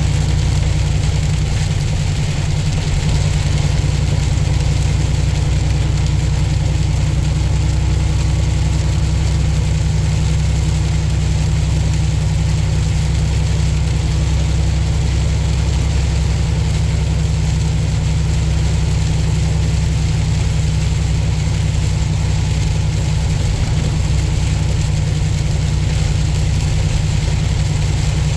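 Tractor-trailer's diesel engine running with a steady low drone, heard from inside the cab, with an even hiss of road noise over it.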